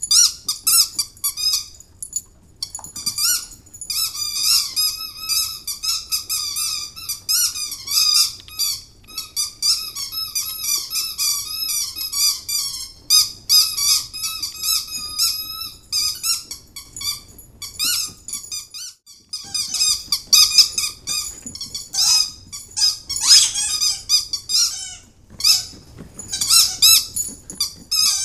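Squeaky dog toys squeaked over and over in rapid runs as Italian greyhounds chew them, with short breaks about two seconds in and again around nineteen seconds.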